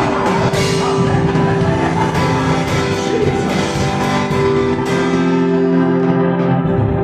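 Music: held chords with drums beating under them.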